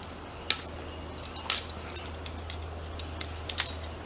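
Screwdriver working the terminal screws of a duplex electrical outlet held in the hand: scattered small metallic clicks and scrapes, a few sharper ones about half a second and a second and a half in, and a quick cluster near the end.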